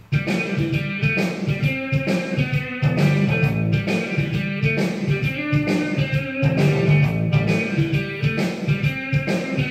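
Instrumental intro of a song played as a backing track: guitar strumming over a steady beat.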